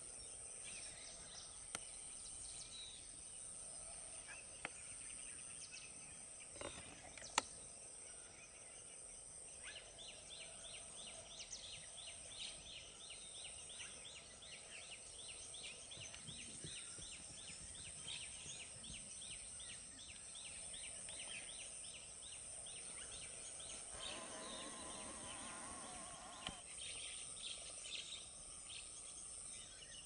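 Faint wild ambience of insects droning steadily at a high pitch. A fast run of repeated chirps, about four or five a second, comes in about ten seconds in and stops near twenty-four seconds, and there is a single sharp click about seven seconds in.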